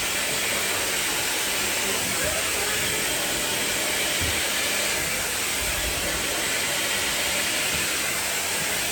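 Hair dryer blowing steadily.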